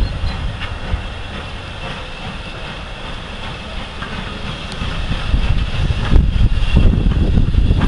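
A train running on the line, with steady rail noise and faint high squealing tones, while wind buffets the microphone, strongest at the start and again from about six seconds in.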